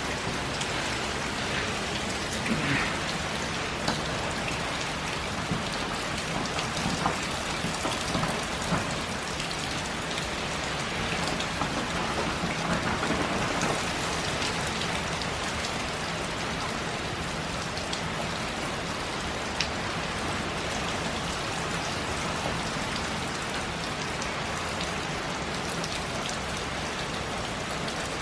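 Heavy hurricane rain falling steadily, with scattered sharper drops and splashes and a slight swell in the middle.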